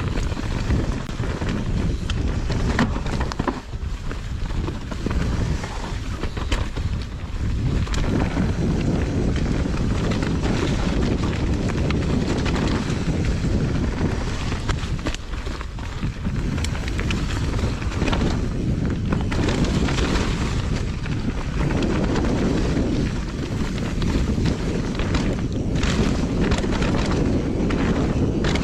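Wind rushing over the camera microphone of a mountain biker riding a jump trail, mixed with tyre rumble on dirt and frequent small rattles and knocks from the bike.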